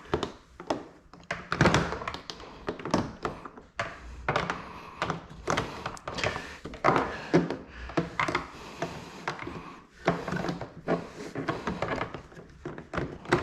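Irregular run of knocks, taps and clunks from hard plastic car-body parts being handled and fitted by hand, as with an aftermarket front bumper cover being test-fitted.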